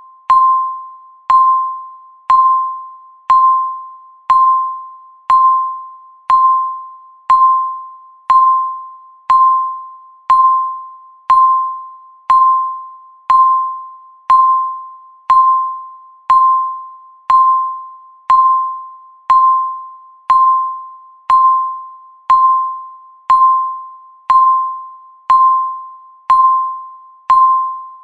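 Countdown timer beep repeating once a second, marking off each second of the countdown. Each beep is a short, clear electronic tone at the same pitch every time, starting sharply and fading away before the next.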